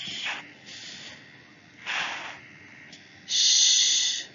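A woman's voice making a long hissed 'shh', the /sh/ phonics sound, about three seconds in. Shorter breathy hisses come at the start and about two seconds in.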